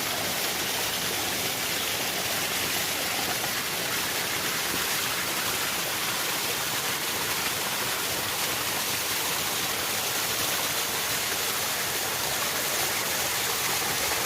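Steady rushing of flowing water, an even hiss that keeps on without change.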